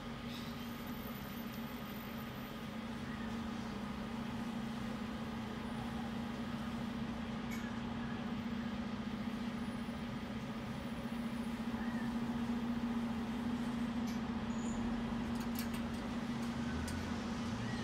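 Steady low hum over a continuous background rumble.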